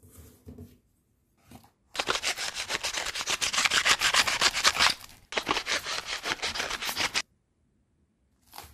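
Crumpled aluminium foil crinkling and scraping as a knife saws through it with fast back-and-forth strokes, in two long bursts with a short break between them, and a brief crinkle near the end.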